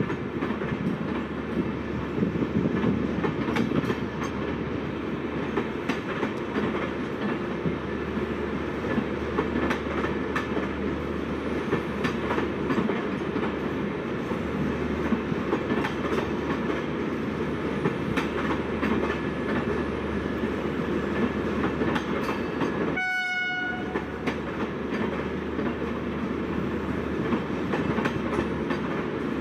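Passenger coaches of an Indian Railways express rolling past on the adjacent track: a continuous wheel rumble with steady clicking over the rail joints. Near the end, a single short high-pitched horn toot sounds for under a second.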